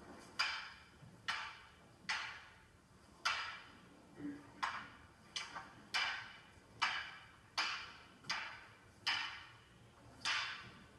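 Wooden practice naginata and wooden sword striking each other in a kata exchange: about a dozen sharp wooden clacks at a steady pace, roughly one a second, each with a short ringing tail.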